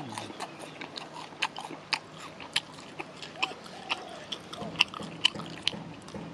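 Close-up wet chewing and lip smacking of sticky, sauce-coated spicy fried chicken: irregular clicks a few times a second, with a couple of short hums through a full mouth.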